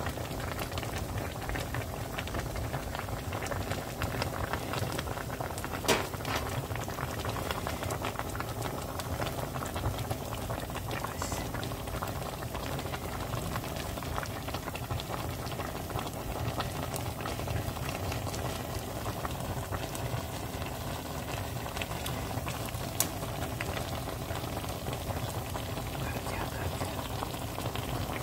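Pot of gamjatang, a spicy pork-bone and potato stew, boiling with a steady dense bubbling crackle. Two sharp clicks stand out, about six seconds in and again about 23 seconds in.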